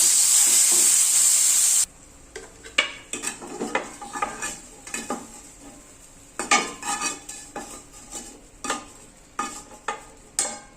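Food frying in a pan with a loud, steady sizzle that cuts off abruptly about two seconds in. A string of irregular clinks and scrapes of a utensil stirring against cookware follows.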